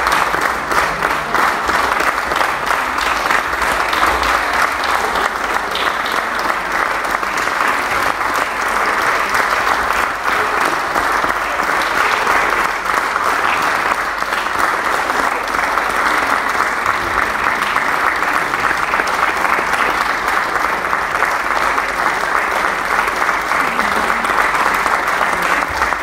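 Applause from a crowd of about a hundred people: many hands clapping in a dense, steady patter with no let-up.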